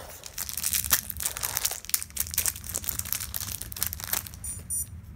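Thin plastic wrapper crinkling and tearing as it is pulled off a small 30mm puzzle cube by hand. Near the end a wristwatch gives its short, high-pitched hourly beep.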